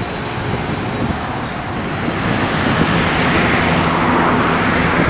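Twin-engine jet airliner's engines at takeoff power, a steady roar that grows louder about two seconds in as the aircraft leaves the runway.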